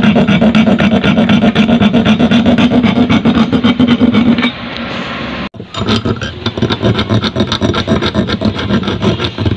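Hacksaw blade, held in the fingers, rasping back and forth in quick strokes as it cuts a slit into the flattened tip of a steel bicycle spoke to split it into a Y-shaped fork. A steady low hum runs under the first half. The sawing pauses about halfway through and then resumes.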